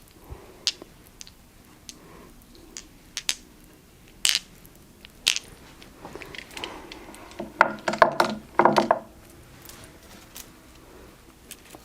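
Quartz crystals being picked up and put down, clicking and clinking against each other in scattered sharp taps, with a quick cluster of knocks about eight seconds in.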